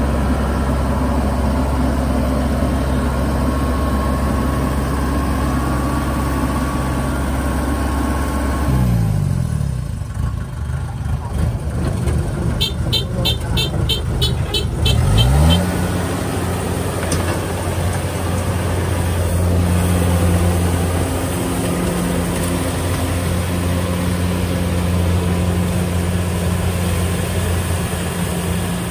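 Kubota DC-70 combine harvester's diesel engine running steadily under load. About nine seconds in it drops sharply in speed, then revs back up about six seconds later, with a quick run of high ticks, about four a second, just before it picks up. It then runs steadily again.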